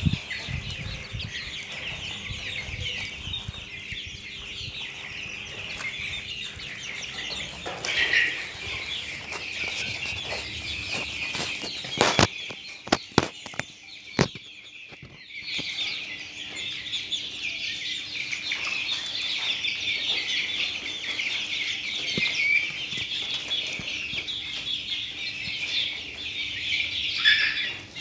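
A flock of young Australorp chickens peeping and cheeping together, a dense chorus of short high calls. A few sharp knocks come about twelve to fourteen seconds in, followed by a brief lull in the calling.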